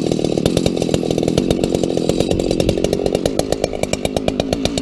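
Large two-stroke chainsaw mounted on an Alaskan chainsaw mill, running steadily under load as it rips a board lengthwise through a maple log.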